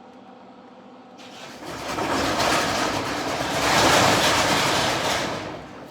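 Electric welding arc crackling as a short bead is run. It starts about a second in, builds to its loudest around four seconds, and cuts off near the end.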